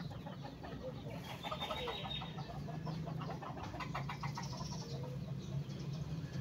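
Chickens clucking and small birds chirping in a rapid run for a few seconds, over a steady low hum.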